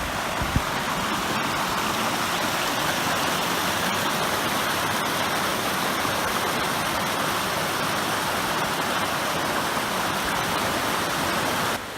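Waterfall rushing, a steady dense hiss of falling water, with a short low knock about half a second in; the noise drops off abruptly near the end.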